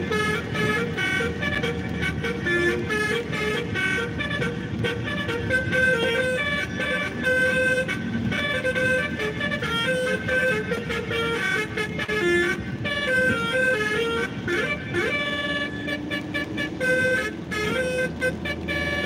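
Telolet basuri multi-tone electric horn playing a continuous tune of quick stepping notes, over the low rumble of a moving vehicle.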